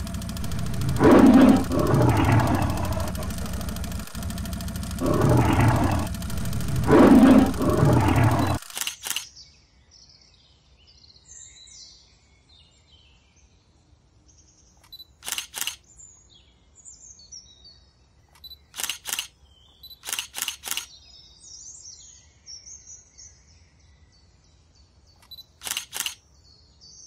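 A tiger roar, two long roars over a steady hiss and hum, cutting off abruptly about nine seconds in. Then a camera shutter clicking in quick pairs five times, with faint birdsong between.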